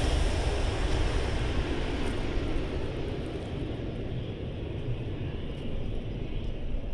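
Jet engine noise of a rear-engined regional jet fading steadily as it moves away after passing low overhead on final approach to land, the hiss dying away first and leaving a low rumble.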